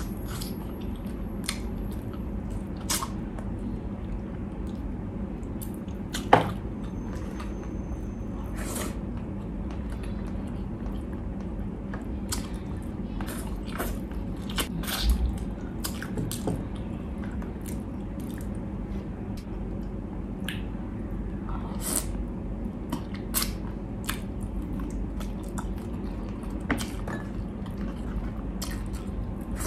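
Close-miked chewing and biting of braised pork ribs eaten by hand, with many short wet clicks throughout and one louder click about six seconds in, over a steady low hum.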